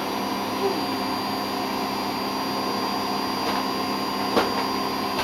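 Small vacuum cleaner running steadily with a constant hum and whine, with a sharp knock about four seconds in.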